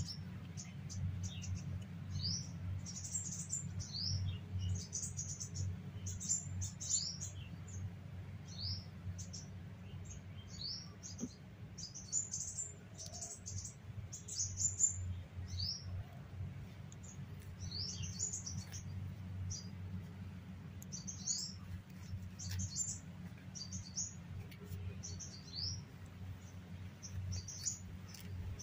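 Small birds chirping over and over, short rising high-pitched chirps about one or two a second, over a steady low background rumble.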